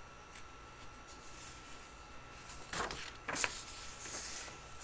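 Quiet room tone with a faint steady high-pitched hum. About three seconds in come two short, soft noises half a second apart.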